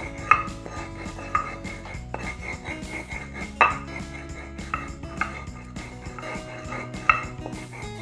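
Stone pestle grinding and knocking on a stone mortar (cobek and ulekan) as peppercorns, salt, sugar and stock powder are crushed, with several sharp clacks of stone on stone. Background music plays throughout.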